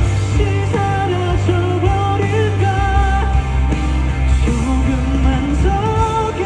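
Live band playing a pop-rock song, a wavering melody line carried over a steady low bass that shifts down about three seconds in.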